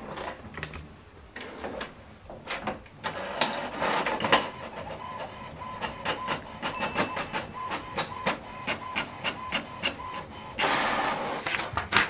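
HP Smart Tank 7605 inkjet printer printing a Windows test page over USB: a run of clicks and short mechanical strokes from the paper feed and print-head carriage, with a faint steady tone through the middle and a louder rush lasting about a second near the end.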